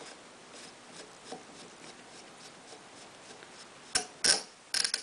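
Parts of a Remington 550-1 rifle's receiver being handled and fitted together by hand: faint rubbing and small ticks, then a few sharp clicks about four seconds in and again near the end.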